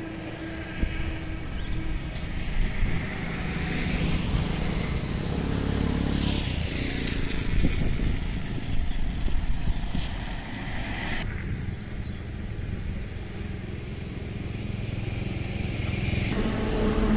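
A motor vehicle engine running, with a low rumble that grows louder in the middle and changes abruptly about two-thirds of the way through.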